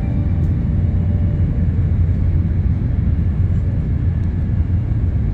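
Steady low running rumble of an E2 series 1000 Shinkansen train, heard inside the passenger car.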